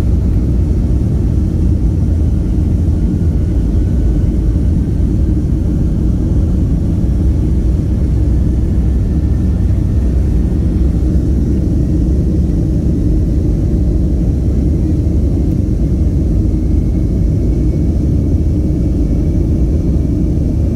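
Steady low rumble inside a jet airliner's cabin as the plane rolls on the ground, with a faint engine whine slowly rising in pitch.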